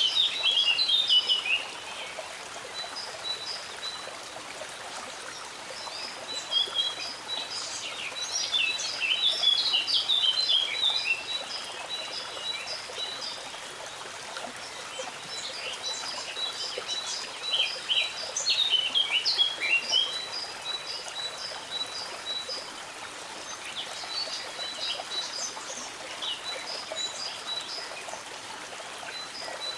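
Stream water running steadily, with songbirds singing over it in several bouts: near the start, from about six to thirteen seconds, again from about fifteen to twenty seconds and near the end. A series of short, high, evenly repeated notes runs through much of it.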